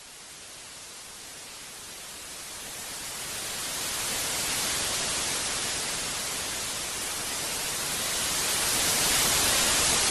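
Static hiss with no tone in it, swelling slowly louder and loudest near the end.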